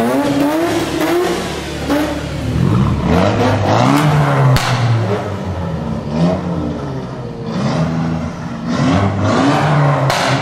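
Modified car engines revving and accelerating away one after another, their pitch rising and dropping again and again through gear changes. A few sharp exhaust cracks come with them, the clearest about halfway through and near the end.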